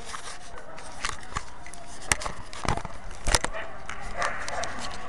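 Irregular clicks and knocks from a handheld video camera being handled and jostled, over a steady background murmur.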